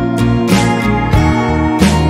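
Background music: an instrumental led by plucked acoustic guitar, with a steady beat.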